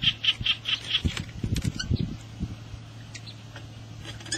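Rustling, soft knocks and wet handling noises as a large swamp eel is gripped and moved about in grass. A quick run of high bird chirps, about seven a second, stops about a second in. A steady low hum runs through the later part.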